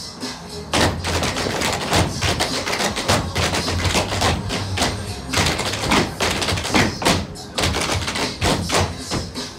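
Tap shoes striking a stage floor in quick rhythmic patterns as several dancers tap in unison, over a recorded music track with a steady low bass.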